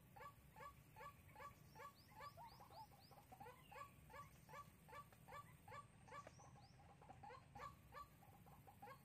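White-breasted waterhen calling: a faint, steady run of short, repeated notes, about two to three a second.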